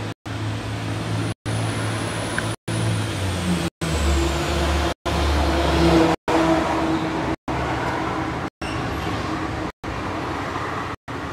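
Engine of the heavy machine carrying a hydraulic magnet generator, running steadily, speeding up and getting louder for a few seconds around the middle, then settling back. A faint high whine rises and falls early on. The sound cuts out for an instant about every second.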